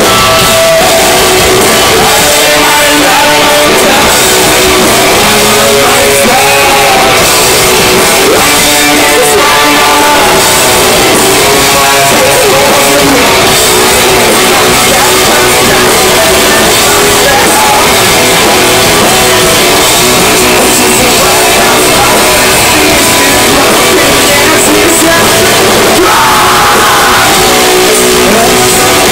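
Rock band playing loud and live: electric guitars, bass and drums, with a singer's voice at times.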